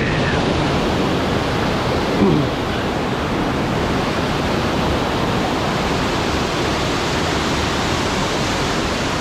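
Water rushing down a waterfall: a steady, even noise with no let-up.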